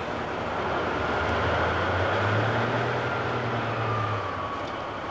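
Train rumbling past: a low engine rumble swells and then fades over a few seconds, with a faint high whine that drops slightly in pitch as it goes.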